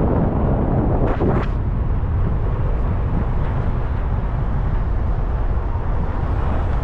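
Car driving along, heard from inside: steady engine and road noise, with a short rush of wind noise about a second in.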